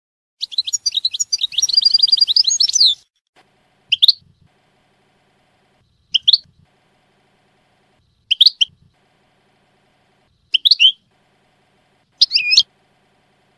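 European goldfinch singing in the Levantine ('Shami') style: a rapid twittering phrase of about two and a half seconds, then five short, separate high calls about two seconds apart.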